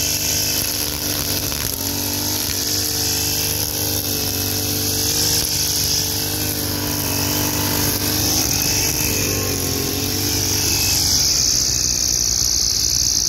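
Backpack petrol brush cutter running at high speed, its nylon-line head spinning through grass and weeds. The engine note holds steady, with a slight wavering in pitch as the line meets the growth.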